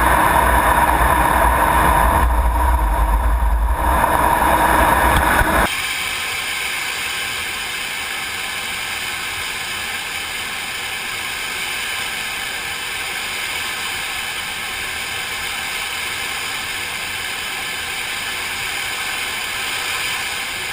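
Jet engine noise on a carrier flight deck: a loud, deep, steady rumble for about the first six seconds, then an abrupt cut to a quieter, steady high hiss.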